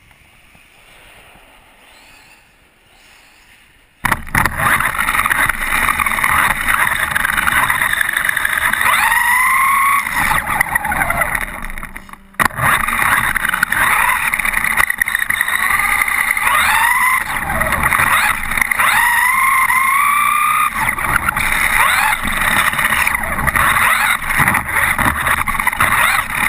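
1/10-scale 4WD RC truck driving on a concrete floor, heard from a camera mounted on the truck: its motor whines up and down in pitch as it speeds up and slows, over steady tyre and drivetrain noise. It is faint for the first four seconds, then loud from about four seconds in, with a brief dropout near the middle.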